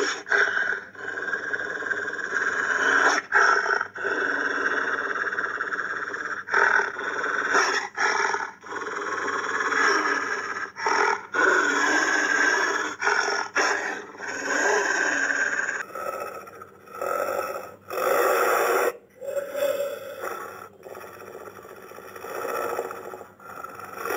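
Dire wolf creature sound effects: a string of canine-style growls and snarls, each lasting one to a few seconds with short breaks between them. About two-thirds of the way through they change to shorter, choppier bursts.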